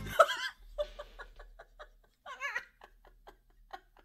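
A person laughing in a run of short giggles that fade out near the end.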